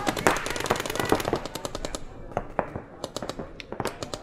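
Paintball markers firing during a speedball game: rapid strings of shots, dense for about the first two seconds, then thinning to scattered shots.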